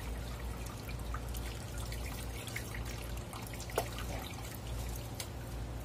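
Water trickling and dripping while fish are cleaned by hand, with faint wet ticks and one sharper click about four seconds in.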